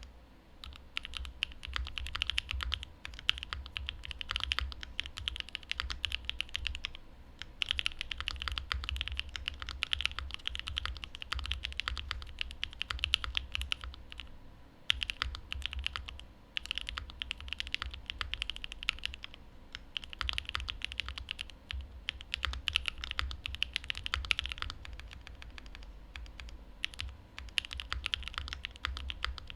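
Typing on a Mode Envoy custom mechanical keyboard with a carbon fibre plate, lubed Cream Soda linear switches and GMK Thai Tea keycaps: a fast, steady stream of keystrokes, each a sharp clack with a low thock beneath it, with a few short pauses.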